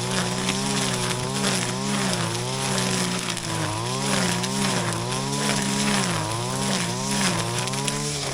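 Shindaiwa RK3026-PT 25.4cc two-stroke brush cutter running at high speed, its engine note dipping briefly and recovering every second or so as it bogs cutting into grass.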